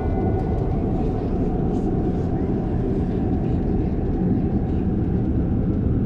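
Pipistrel Velis Electro on the runway, its 60 kW electric motor and propeller turning at low power with a faint steady whine over a steady rumble of the wheels rolling on the pavement, heard inside the cockpit.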